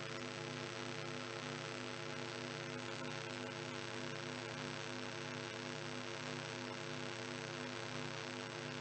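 Steady electrical hum and buzz from the PA sound system, holding level throughout.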